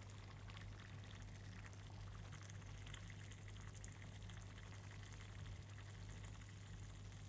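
Bean stew simmering faintly in a saucepan, with soft scattered bubbling crackles over a steady low hum.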